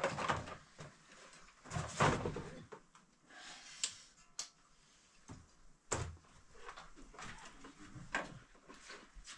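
Irregular knocks, clatters and rustling of objects being handled, loudest about two seconds in, with further sharp knocks later on.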